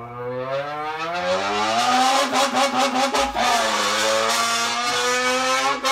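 A man imitating a revving car engine with his voice, speaking into a drink can held to his lips. The pitch climbs steadily, stutters through quick gear changes, dips and climbs again, then cuts off at the end. It is meant as a Honda VTEC engine.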